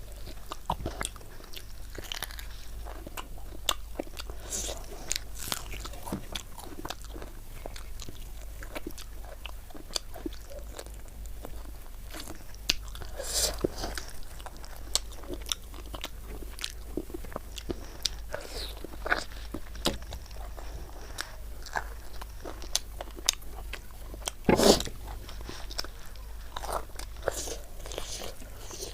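Close-miked mukbang eating sounds: wet chewing and lip and mouth clicks of someone eating rice with chicken curry, with a few louder bites, the loudest about 13 and 24 seconds in.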